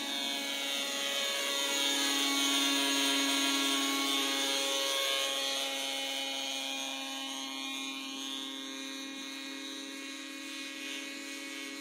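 Radio-controlled model helicopter in flight: its small engine and rotor give a high, steady whine. The whine grows louder over the first few seconds, then slowly fades, its pitch drifting a little as the helicopter moves.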